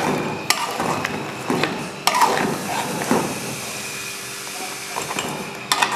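Metal spatula stirring mutton in a metal karahi, scraping along the pan with a few sharp knocks of metal on metal.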